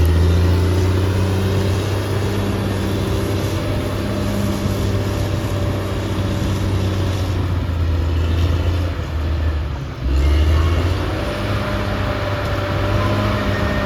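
Caterpillar D6R XL bulldozer's diesel engine running steadily with a low drone. It drops off briefly about ten seconds in, then picks back up.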